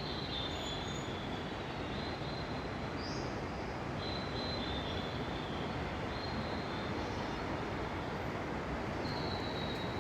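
Indoor rainforest ambience: a steady rushing noise with high, thin calls held for a second or two at a time, coming and going several times.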